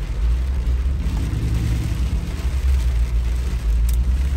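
Mercedes G63 AMG Brabus V8 running steadily while driving, heard from inside the cabin as a low drone, with the hiss of tyres and rain on the wet road over it.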